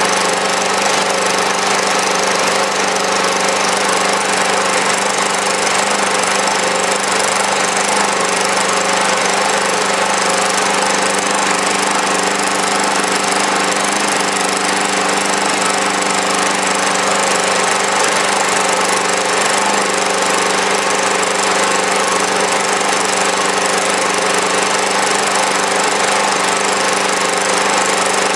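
Small stationary engine running steadily at a constant speed, loaded by a generator putting out about 350 watts. It is running on its normal fuel without HHO.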